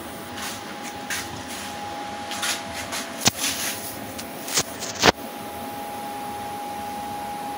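Steady mechanical hum with a faint high steady whistle. Over it come a scatter of sharp clicks and knocks from handling as the camera is moved under the car, the loudest about three and five seconds in. After that only the hum is left.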